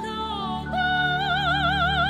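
Soprano singing over instrumental accompaniment: a phrase tails off, then about two-thirds of a second in she slides up into a long high note held with a wide vibrato.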